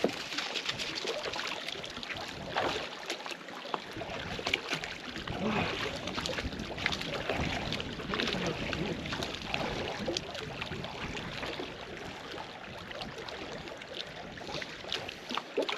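Splashing in shallow lake water as a person and a boxer dog wade among the stones, with small waves lapping at the shore.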